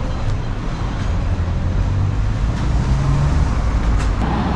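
Street traffic noise: a motor vehicle's engine running close by, a steady low rumble that grows a little louder near the end.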